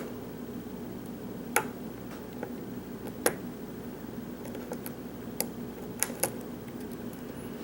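Lock picking: a short hook pick working the pins of a Sargent-keyway challenge lock under a pry-bar tension tool, giving a few sharp, irregular metal clicks, the loudest about a second and a half and three seconds in. A steady low hum runs underneath.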